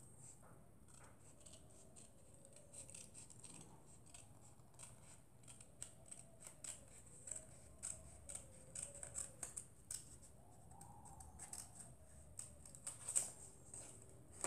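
Scissors snipping through a folded sheet of coloured paper, a long run of small quick cuts around a curved outline, the sharpest snip near the end.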